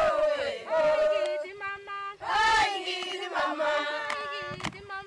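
Women singing together in long held notes that rise and fall between phrases, with one sharp click near the end.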